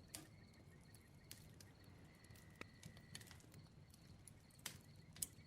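Faint crackling of a wood bonfire: scattered small pops and snaps over a quiet hiss, a few sharper pops standing out.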